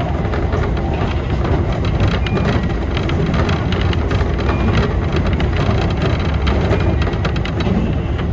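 Keihan electric commuter train running at speed, heard from the front of the train: a steady rumble of wheels on rail with a dense patter of small clicks and rattles.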